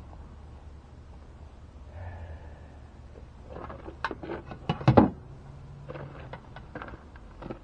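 Someone rummaging among tools and small metal parts while searching for new piston circlips: a run of clicks, knocks and clatters, loudest about five seconds in, over a low steady hum.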